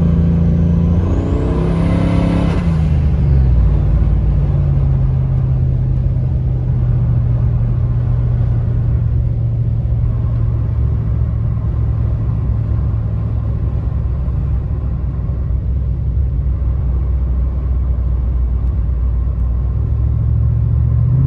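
Turbocharged Hemi V8 in a Ram 1500, heard from the cab while driving. For the first two to three seconds a high turbo whistle sounds over the engine, then fades as the engine note drops. After that the engine settles into a steady low drone while cruising, and it begins to rise again at the end.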